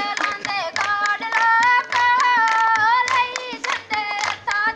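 Girls singing a folk song in high voices, holding and bending long notes, over steady beats of a two-headed barrel drum played by hand.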